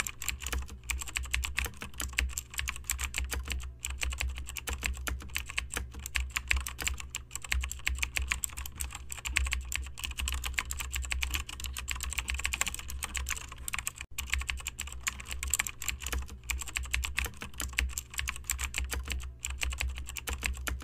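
Fast, continuous typing on a computer keyboard: a dense run of key clicks, several a second, with no break.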